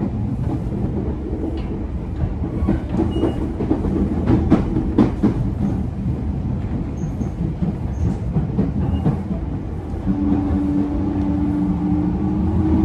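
JR E231 series 800 commuter train running, heard from inside the car: a steady rumble of wheels on rail with a few sharp clacks of rail joints. About ten seconds in, a steady whine from its original, un-renewed inverter drive and traction motors comes in and rises slightly in pitch.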